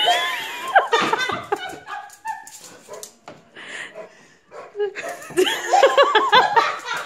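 A dog whining and yelping in high, gliding cries: the excited greeting of a dog whose owner has just come home. There is a burst of cries at the start and another dense run near the end.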